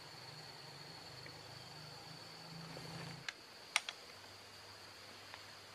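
A PCP air rifle shot: a short sharp crack a little under four seconds in, with a fainter click just after, over a steady high insect drone.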